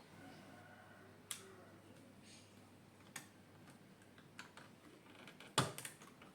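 A few scattered sharp clicks and knocks of small hard parts being handled, spaced a second or two apart. The loudest is a cluster of clicks about five and a half seconds in.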